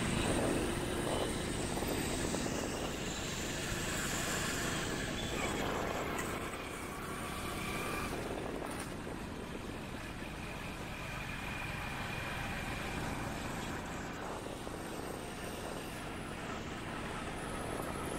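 Steady road and traffic noise from a vehicle driving through city streets.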